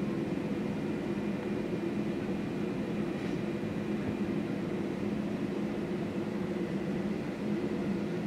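Steady drone of an airliner's jet engines at taxi power, heard inside the cabin: an unchanging low hum under an even hiss.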